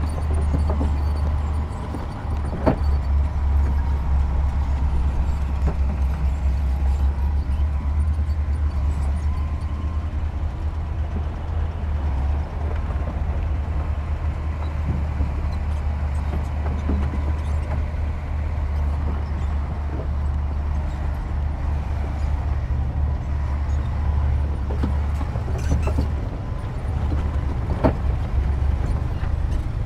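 Heavy diesel earthmoving machinery running steadily with a deep, continuous engine drone. Two sharp metallic clanks stand out, one a few seconds in and one near the end.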